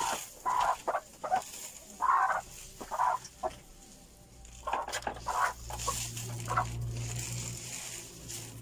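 Domestic hens clucking in short, separate calls around the grain trough. A low steady hum comes in about halfway.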